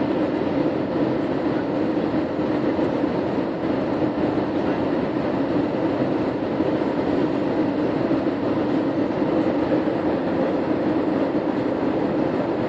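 Steady airliner cabin noise: an even rumble of engines and airflow with a constant low hum.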